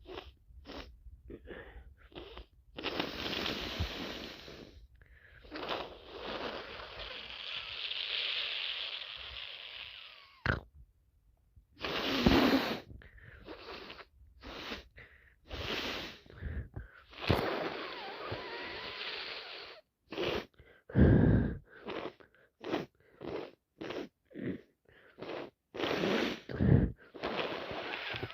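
A person with a head cold blowing a congested nose in several long, wet blows, between many short sharp sniffs. A few louder bursts come in between.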